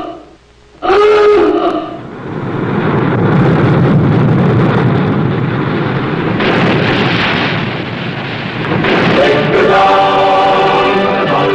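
A submarine's klaxon-style alarm sounds one blast near the start, following another just before. A long rushing, rumbling noise follows, and about nine seconds in, music with a choir begins.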